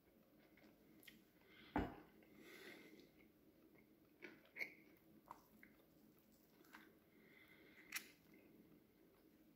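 Faint handling noises against near silence: a few sharp clicks and taps with light rustling, the loudest click about two seconds in and another near eight seconds.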